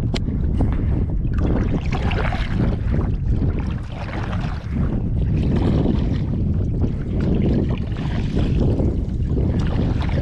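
Wind buffeting the microphone in a steady low rumble, with water swishing and splashing around a kayak in surges every few seconds. A single sharp click right at the start.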